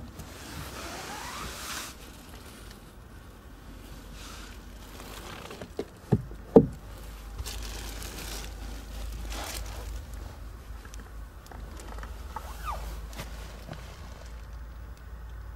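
Rustling and handling noise as a person shifts about on a car's rear seat, with two sharp knocks about six seconds in.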